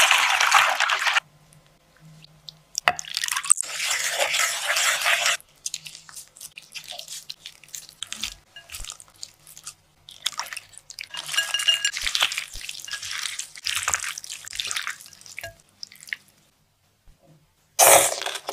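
Ice water poured from above onto boiled chicken pieces in a wooden bowl, splashing and dripping. Several more separate stretches of pouring and splashing follow, the longest about ten seconds in.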